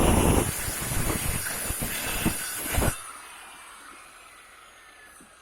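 Dnipro-M MShK 2300P 230 mm angle grinder cutting brick: a harsh grinding with irregular crackles that stops abruptly about three seconds in. The motor then spins down with a faint falling whine. The disc is worn down.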